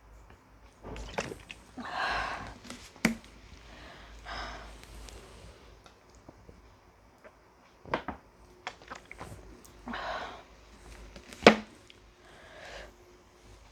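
Quiet breathing, swallowing and handling noises from a person drinking cola from a plastic bottle, broken by a few soft breaths. There is a sharp click about three seconds in and a louder one about eleven and a half seconds in.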